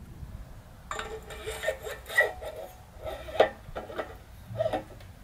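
Metal clinking and knocking as a suspension fork's steerer is fitted up through the head-tube bearings of a scooter frame: a run of irregular sharp clinks, a few with a short ring, starting about a second in.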